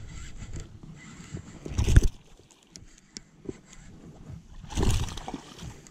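Wind buffeting the microphone: a low rumble with two strong gusts, about two seconds in and near the five-second mark, and a few faint clicks in the calmer spell between them.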